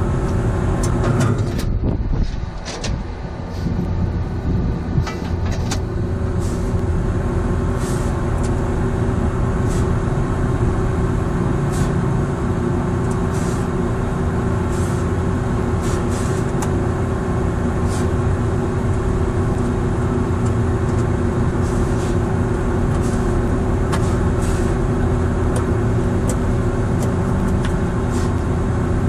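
Refrigeration condensing unit running: a 20 HP Copeland semi-hermetic reciprocating compressor and its condenser fans make a steady mechanical hum with a buzzing drone. The level dips briefly about two seconds in, and faint ticks come and go.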